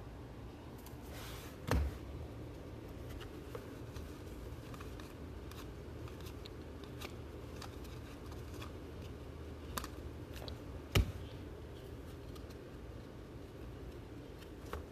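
Trading cards being handled on a table: faint rustling and small ticks over a low hum, with two sharp taps, one about two seconds in and one about eleven seconds in.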